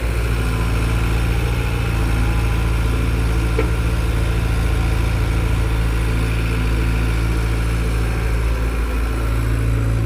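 Heavy earthmoving machine's diesel engine running steadily at an even, low pitch, with one brief click about three and a half seconds in.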